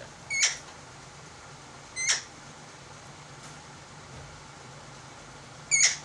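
Alexandrine parakeet giving three short, shrill screeches: one just after the start, one about two seconds in and one near the end.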